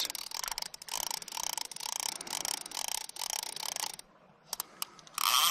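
Fly reel's click-and-pawl ratchet clicking as line is wound in, in pulses about three a second, stopping about four seconds in. A short loud rush of noise comes near the end.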